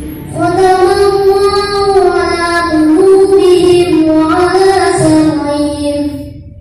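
A boy reciting the Quran in melodic tartil style into a microphone: one long phrase that rises and falls gently and trails off near the end.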